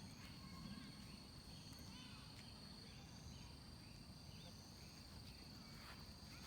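Faint park ambience: a steady high-pitched insect trill with a second, higher trill that comes and goes, scattered short chirps, and a low rumble underneath.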